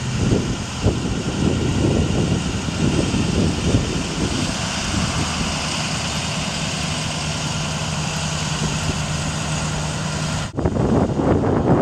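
Ford F550 bucket truck's engine idling while the Versalift aerial boom raises the bucket, with wind buffeting the microphone in the first few seconds. A steady low hum comes in about six seconds in and stops abruptly near the end.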